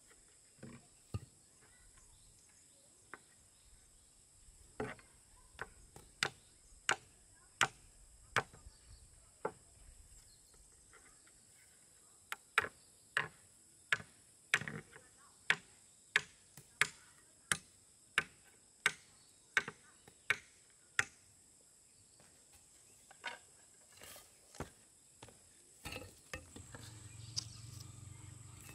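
A hand tool striking over and over at a steady pace of about one and a half blows a second, in two long runs with a pause between and a few scattered blows near the end. Insects trill steadily behind it.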